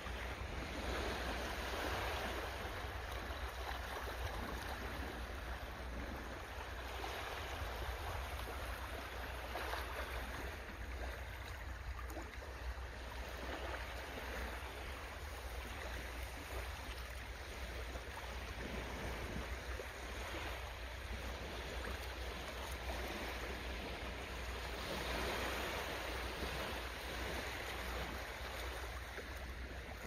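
Steady rushing water noise, like surf or flowing water, swelling and easing a little, over a low steady hum.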